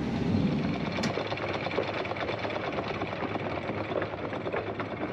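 Boat engine running steadily with a fast, even clatter.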